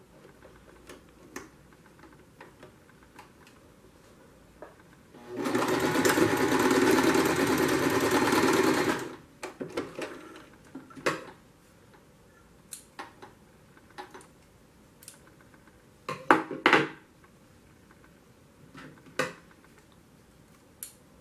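Domestic electric sewing machine stitching a seam, running steadily for about four seconds from a quarter of the way in and then stopping. Light clicks and taps of handling follow, with scissors trimming the threads near the end.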